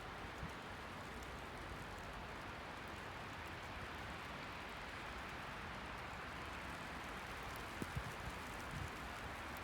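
Steady faint hiss of wintry precipitation falling, with a couple of soft knocks about eight seconds in.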